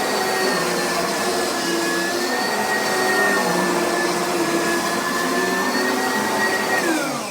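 Oreck upright vacuum cleaner running with a steady high motor whine, then switched off near the end, its pitch falling as the motor spins down.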